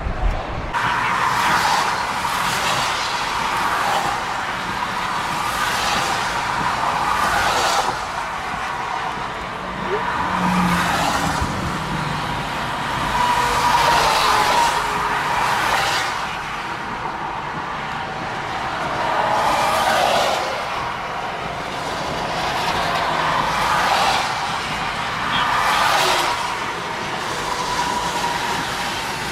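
Road traffic: vehicles passing one after another, their tyre hiss swelling and fading every few seconds.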